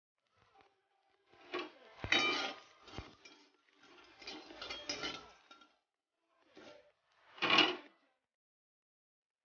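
A metal spatula scrapes and clinks against a metal wok, stirring dry whole spices that rattle across the bare pan as they roast without oil. It comes in several separate bursts, with a couple of sharper knocks of the spatula on the pan early on.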